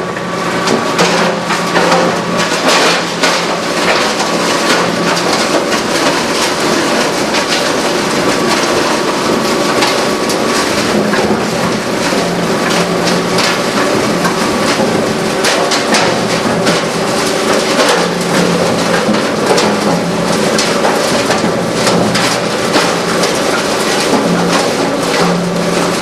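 A 25-hp open rotor granulator with a direct-drive electric motor running under load, its rotor knives chopping material fed into the hopper: a loud steady machine hum with a dense crackle of cutting impacts throughout.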